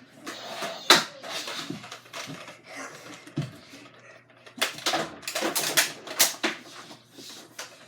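A scatter of sharp clicks and knocks, one loud one about a second in and a quick run of several more around five to six and a half seconds.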